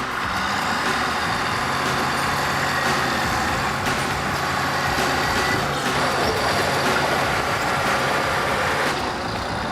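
Diesel engine of a heavy earthmoving machine running steadily, with hiss and clatter over a low, even drone.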